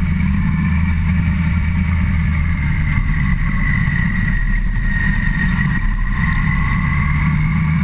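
Yamaha FZ1 motorcycle's inline-four engine running steadily while riding, with a faint whine that dips a little around the middle and rises again.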